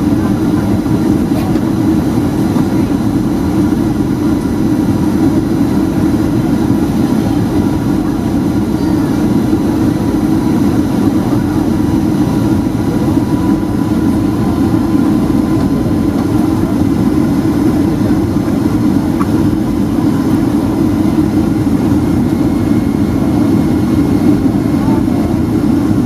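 Cabin noise of a Boeing 757-200 with Rolls-Royce RB211 engines rolling on the ground after landing: a steady low rumble with a faint steady whine above it.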